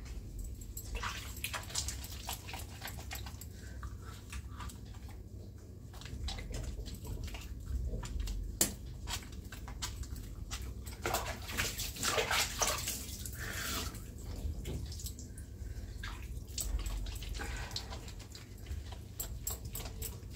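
Water splashing and pouring as a person bathes, with irregular splashes and clicks and a louder run of pouring about eleven to fourteen seconds in.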